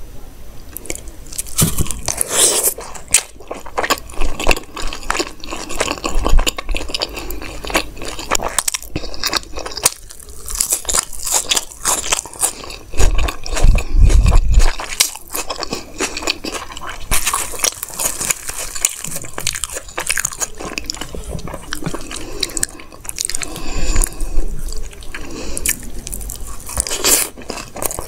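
Close-miked eating sounds: chewing with crisp crunches and wet, squishy mouth sounds as chole and bhatura are bitten and chewed, coming in irregular crackling bursts.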